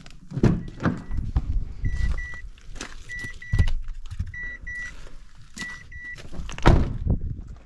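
A car's electronic warning chime giving a double beep about every 1.2 s, five times, over clatter and knocks of things being handled, with a loud thump near the end.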